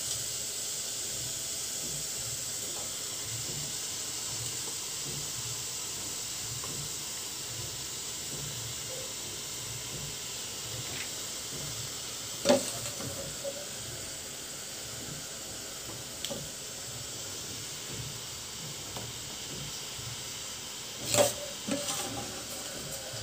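Steady hiss of a steamer pot on the stove, steaming cups of batter. A spoon clinks sharply against a metal pot about halfway through and again near the end.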